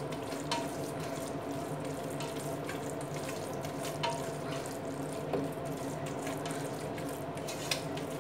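A spatula stirring and scraping thick onion-and-curd masala around a stainless steel pressure cooker, with about three light knocks against the pot, two of them ringing briefly, over a steady low hum.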